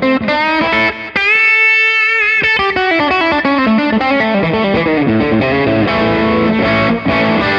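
Electric guitar played through an overdrive pedal into a Rocknroll Amps JK15, a 15-watt two-EL84 valve amp set to clean mode, giving a mildly driven lead tone. Quick single notes lead into a long held note that wavers about a second in, then a falling run and ringing notes.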